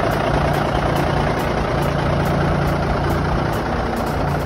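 Cummins 230 diesel engine of a 1965 Brockway 257T truck idling steadily.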